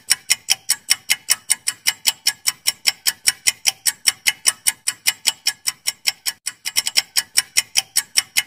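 Clock-ticking countdown-timer sound effect, fast, steady ticks at about five a second with a brief stumble in the rhythm about six and a half seconds in, marking the time left to answer.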